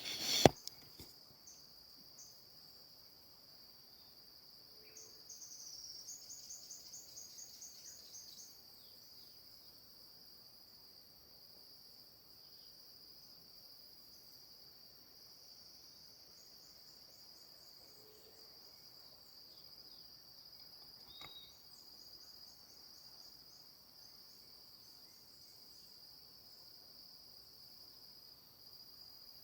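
Insects singing in a steady high-pitched chorus, with a faster pulsing trill joining in for a few seconds about five seconds in and again faintly later, and a few faint chirps. A sharp knock sounds right at the start.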